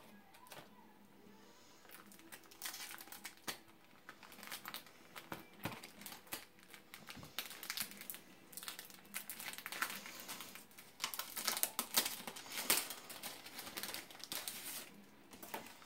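Clear plastic wrapping crinkling as hands handle postcard packaging. The crackling starts a couple of seconds in, comes in quick irregular runs, is loudest about three quarters of the way through, and dies away near the end.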